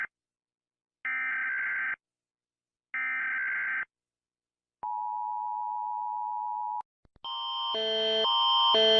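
Emergency Alert System tones. Two roughly one-second bursts of warbling SAME header data, a second apart, are followed by a steady two-second dual-tone attention signal. From about seven seconds in, a louder, swelling multi-tone alarm starts, switching pitch about twice a second.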